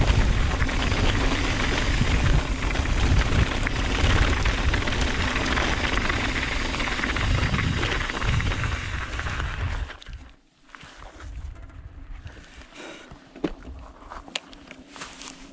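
Mountain bike riding down a rocky trail, heard from a chest-mounted camera: wind buffeting and the bike rattling over rocks. About ten seconds in the noise drops away as the bike slows and stops, leaving a few light clicks.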